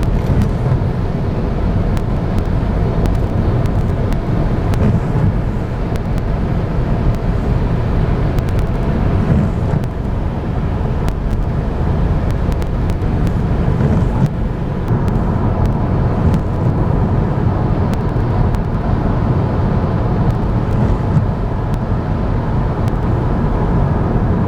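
Car driving with a steady low road and engine rumble, with scattered faint ticks over it.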